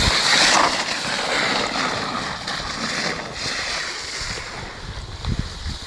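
A sled sliding down packed snow, its base hissing and scraping over the surface, loudest in the first second of the run and then going on more evenly.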